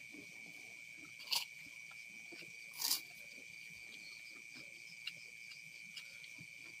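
Crickets chirring in one steady high tone, over small clicks and smacks of hands eating rice off banana leaves. Two short, loud crackly noises come about a second and a half and three seconds in.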